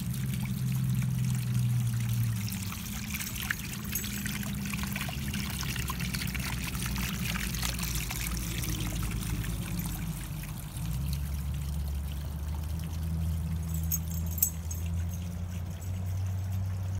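Small garden water fountain trickling and splashing steadily, over a low hum. A single sharp click comes near the end.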